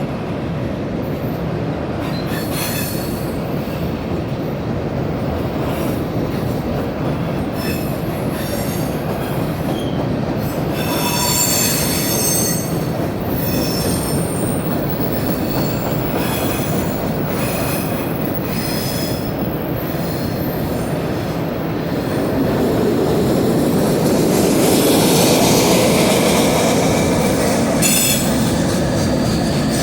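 Train rolling across a rail bridge: a steady rumble of wheels on rail, with short high-pitched wheel squeals coming and going several times and the rumble swelling louder for a few seconds past the middle.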